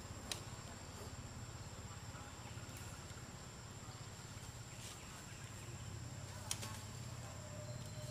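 An insect shrilling in one steady, thin, high-pitched tone over a low background hum, with a few brief sharp clicks.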